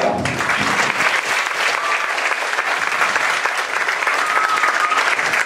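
Audience applauding, a dense steady clatter of many hands clapping that starts as the announcement ends. A brief high single note rises above the clapping about four seconds in.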